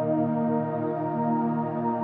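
Slow ambient background music of long, held tones.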